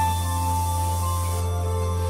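Live instrumental music from electric guitar and piano: sustained notes over a steady, held low bass drone, with no sharp attacks.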